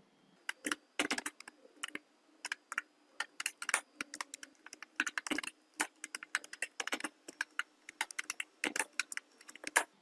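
Typing on a computer keyboard: irregular key clicks in quick runs with short pauses between them.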